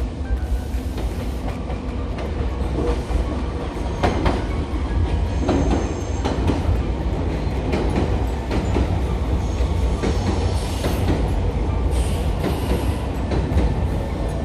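Nankai 6000 series electric train running slowly into the station: a steady rumble of the running gear with clicks of wheels over rail joints and a few short high wheel squeals.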